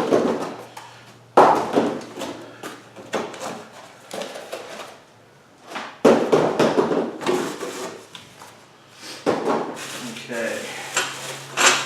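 Parts of a motorcycle lift being handled and pulled from their cardboard packing: a few sudden clunks, each trailing off, with rustling and knocking between.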